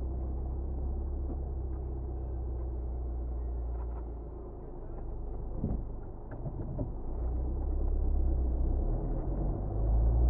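A car being driven, its engine and road noise a steady low rumble that eases for a moment about halfway through, with a couple of light knocks, then builds again.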